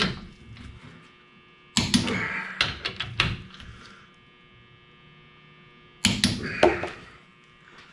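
Torque wrench being pulled up on the differential bearing-cap bolts: two bouts of clicking and metal knocks, about two seconds in and again about six seconds in, over a steady electrical hum.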